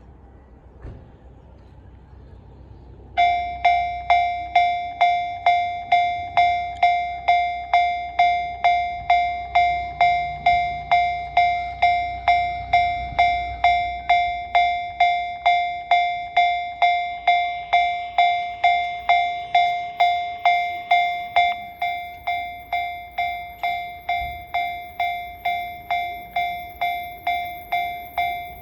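Japanese railway level crossing warning bell starting about three seconds in and ringing steadily at about two strikes a second, signalling that a train is approaching and the crossing is closing.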